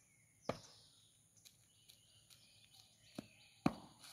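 A cadet's drill footsteps on a dirt parade ground: a sharp foot stamp about half a second in, faint marching steps about two a second, then two sharp stamps close together near the end as he halts.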